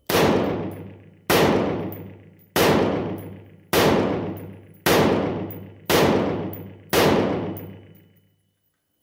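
Seven shots from a 5.56 AR-style rifle fitted with a Strike Industries Venom four-prong flash hider, about one a second. Each shot is followed by a long metallic ringing from the flash hider's prongs, like a tuning fork, dying away over about a second.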